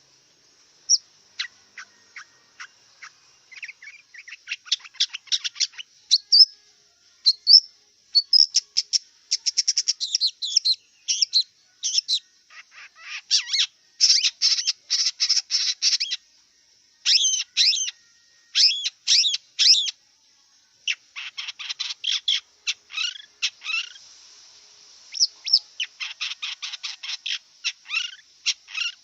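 Long-tailed shrike singing: bouts of rapid, harsh chattering notes broken by short pauses.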